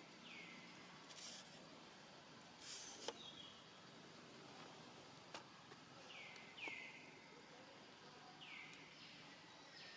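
Faint outdoor ambience with a bird's short calls, each sliding down in pitch, heard about five times. Two brief rustles in the first few seconds and a couple of faint clicks.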